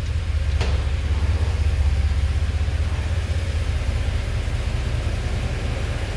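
A vehicle engine idling: a steady, low, pulsing rumble, with a single sharp click about half a second in.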